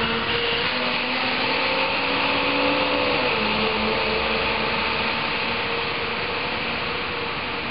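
School bus engine running with a steady drone. Its pitch dips about three seconds in, and it fades slowly near the end.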